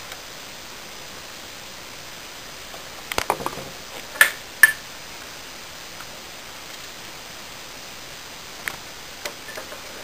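Steady low hiss with scattered sharp clicks and knocks: a small cluster about three seconds in, two loud sharp knocks just after four seconds, and a few light clicks near the end.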